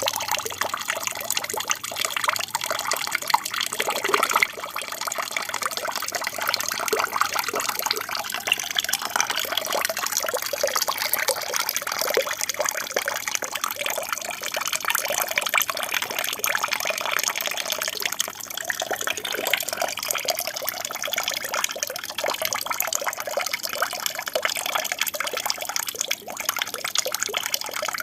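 Steady trickling and splashing of water falling in a small aquarium waterfall.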